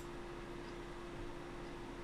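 Quiet room tone: a steady hiss with a faint constant hum.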